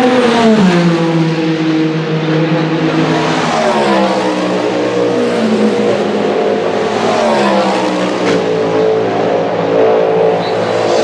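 Race car engines on track: the engine note drops sharply just after the start, then climbs and falls again twice.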